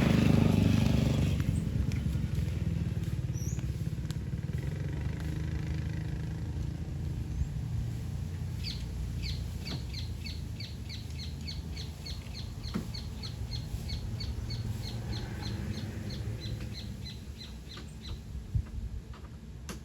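A loud vehicle rumble fading away over the first couple of seconds, leaving a steady low rumble. Partway through, a bird calls a long run of short, evenly spaced high notes, about three a second, for roughly ten seconds.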